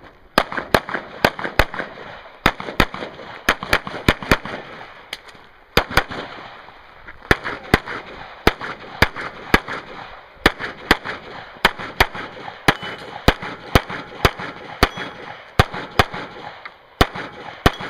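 Pistol shots fired in quick strings of several shots each, with brief pauses between strings, several dozen shots in all. This is a shooter running a timed action pistol course of fire after the start signal.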